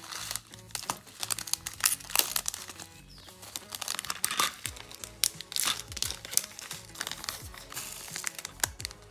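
Small clear plastic bag crinkling and crackling in irregular bursts as fingers open it and fill it with scoops of Fimo clay slices and beads, over background music.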